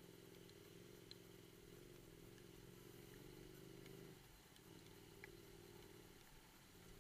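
Motorcycle engine running faintly at a steady low pitch, its note dipping briefly about four seconds in.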